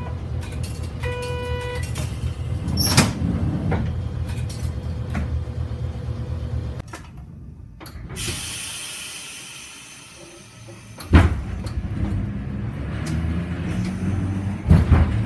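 Inside a streetcar at a stop, with the tram's steady low hum: a short electronic beep about a second in, then the doors sliding shut with a knock about three seconds in. After a brief break the tram runs on with a low rumble and a sharp knock about eleven seconds in.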